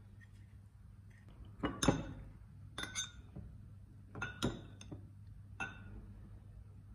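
Metal fork clinking against glass dishes, about six light, ringing clinks spread over a few seconds, the loudest about two seconds in, as a breaded chicken cutlet is handled and dipped in beaten egg.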